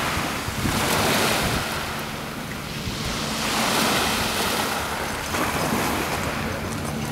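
Wind gusting across the microphone, swelling and easing every few seconds, over the wash of waves on the water. A faint low steady hum runs underneath.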